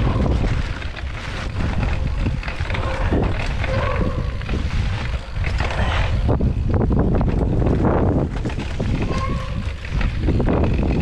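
Wind buffeting an action camera's microphone in a steady, loud low rumble, with a few short knocks.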